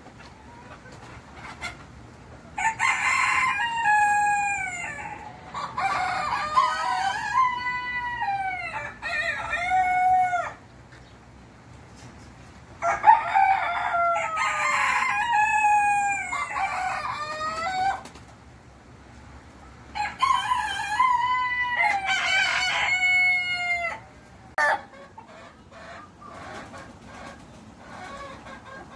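Loud, drawn-out bird calls in five bouts with short quiet gaps, each call sliding down in pitch at its end, some calls overlapping as if from more than one bird.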